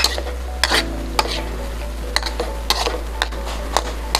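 A spatula stirring squid in a hot pan, knocking against the pan about twice a second, over a steady sizzle.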